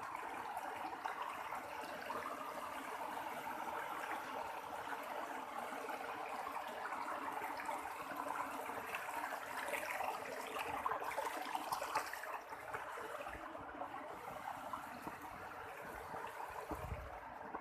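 Clear stream running, a steady even rush of water.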